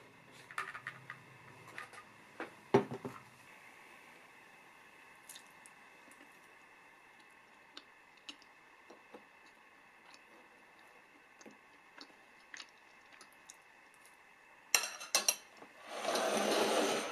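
Light taps and a knock of objects set down on a table, then near the end a metal fork clinks sharply several times on a ceramic plate and scrapes through a soft cookie for about a second.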